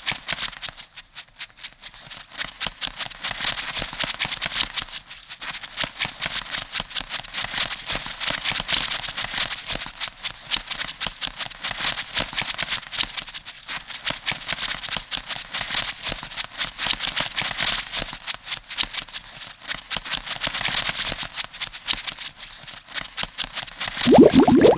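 Crab sound effect: a dense, rapid, continuous clicking rattle, like a crab's legs and claws clattering as it scuttles. In the last second a different, lower bubbling sound takes over.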